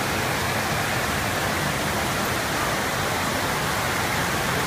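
Indoor standing-wave surf machine: a thin sheet of pumped water rushing up its padded slope in a steady, even roar.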